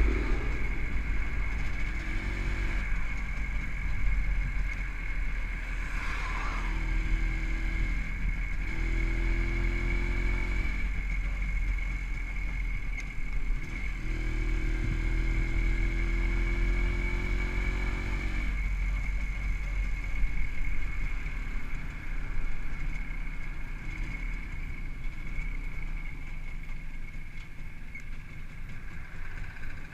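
WSK 125's single-cylinder two-stroke engine, fitted with CDI ignition and a Dellorto PHBG carburettor, pulling through the gears on the move, its note rising in pitch in several pulls before it eases off for the rest. Heavy wind rumble on the bike-mounted microphone runs underneath.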